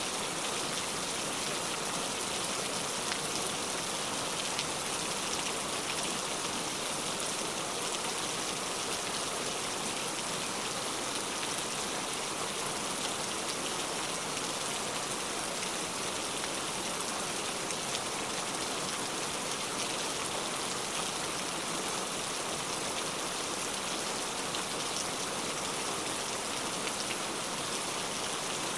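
Steady rain, an even hiss with the small ticks of single drops striking surfaces scattered through it.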